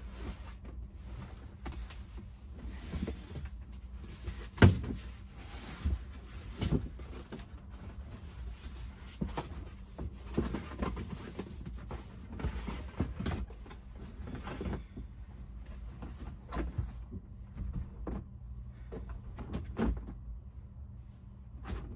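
Rustling, scraping and knocking of a windshield sunshade panel being handled and fitted inside a van's cab, with one loud knock about five seconds in. A steady low hum runs underneath.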